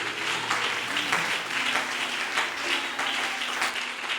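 A congregation clapping and applauding, many hands at once in a continuous irregular patter.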